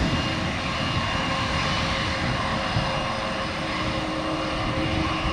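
Airbus A220's Pratt & Whitney PW1500G geared turbofan engines powering up for the takeoff roll: a steady jet noise with several held tones, and a low hum that joins about three seconds in.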